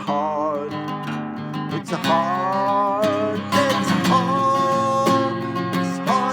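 Song: a singer holding long sung notes with vibrato over a strummed acoustic guitar.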